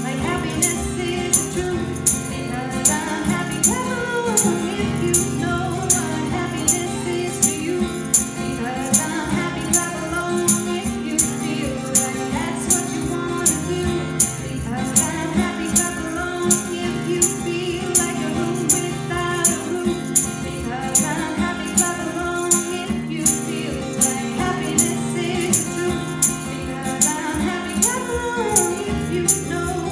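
A woman singing an upbeat song to strummed acoustic guitar, with a handheld tambourine shaken in a steady beat.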